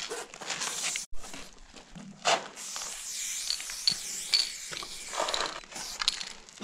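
Aerosol spray-paint can hissing as black lines are sprayed, cutting out briefly about a second in and then starting again, with a few short knocks in between.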